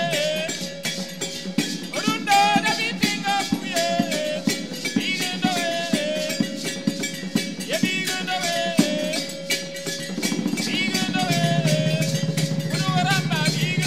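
A group singing a song with a lead voice on a microphone, over hand drums and a beaded gourd shaker keeping a fast, steady rhythm. A steady held note runs underneath the voices.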